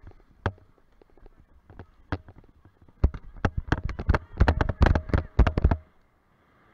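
Paraglider pilot's boots crunching on loose volcanic gravel during a launch: a few scattered steps, then a fast run from about three seconds in that stops suddenly just before the end as the feet leave the ground, followed by a faint steady rush of wind.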